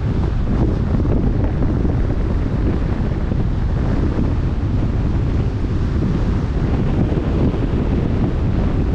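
Wind buffeting the microphone over open-sea waves washing past the boat: a steady, deep rushing noise with no breaks.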